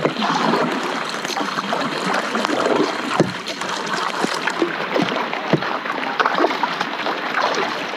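Double-bladed paddles of a tandem sea kayak dipping and pulling through the water, splashing and dripping off the blades with each stroke, over the patter of light rain on the water.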